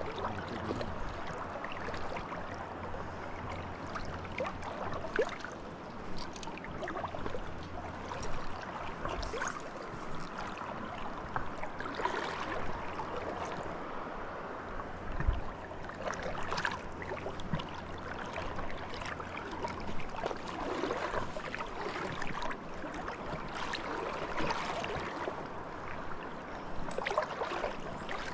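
River water running steadily, with irregular splashes.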